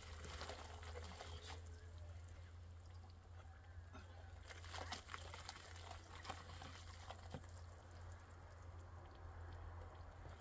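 Hands scooping dry powder from a sack and working it into a watery mix in a metal basin: faint pouring, dribbling and rustling sounds over a steady low hum.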